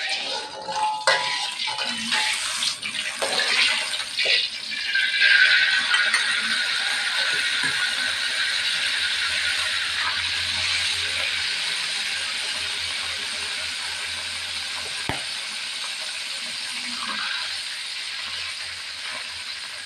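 Eggs frying in hot oil in a wok. A sudden loud sizzle with crackling and spatter for the first few seconds settles into a steady sizzle that slowly fades.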